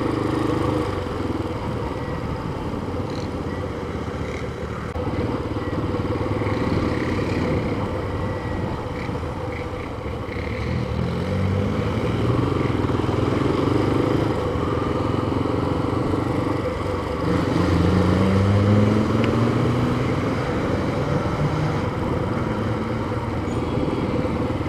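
Single-cylinder engine of a Yamaha FZ25 motorcycle running under way, heard from the rider's seat with road and wind noise. The engine pitch climbs twice as it accelerates, about eleven and seventeen seconds in.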